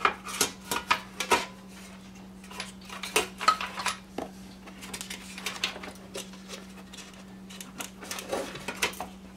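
Thin aluminium reflector pan of an air fryer clattering and clicking against its plastic housing as it is handled and seated: a quick run of light metallic knocks in the first second and a half, then scattered knocks. A faint steady hum runs underneath.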